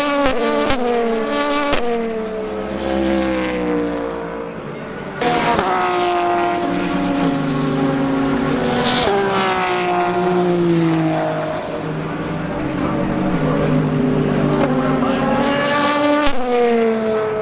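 Prototype and GT3 race car engines passing one after another through a corner. Their notes fall and step down in pitch through gear changes. The sound changes abruptly about five seconds in.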